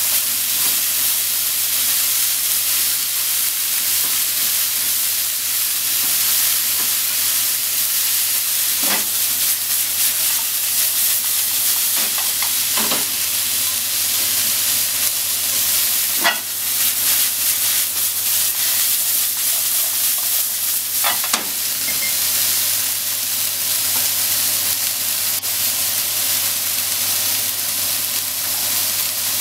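Bean sprouts, cabbage, carrot and ham sizzling steadily in a hot nonstick frying pan over a gas flame. Several sharp knocks of wooden cooking chopsticks against the pan stand out over the hiss.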